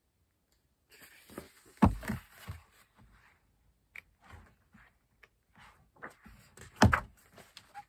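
Handling of a large paperback picture book as its page is turned: rustling paper and small clicks, with two dull thumps, one about two seconds in and a louder one near the end.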